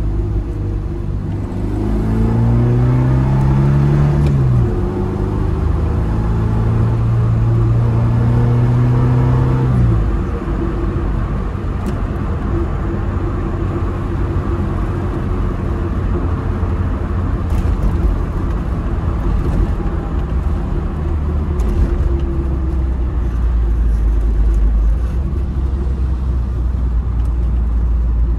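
Tofaş car's four-cylinder engine through a Konya aftermarket exhaust, heard from inside the cabin while driving: the engine note rises as it accelerates a couple of seconds in, holds steady, then drops off about ten seconds in and settles into a low rumble.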